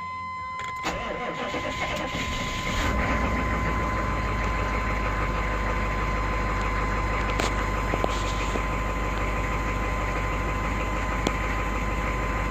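Chevrolet Tahoe's 6.5-litre turbo-diesel V8 being started: the starter cranks it for about two seconds from just under a second in, it catches near three seconds in, and it settles into a steady idle.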